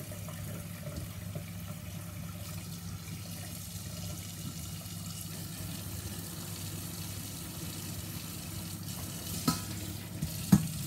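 Kitchen tap running steadily onto raw chicken being rubbed clean by hand in a metal colander in the sink, the water splashing off the meat. Near the end come two sharp knocks about a second apart.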